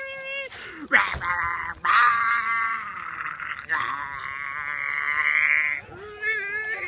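Three long, quavering, bleat-like calls, one after another with short gaps, then a lower wavering sound near the end.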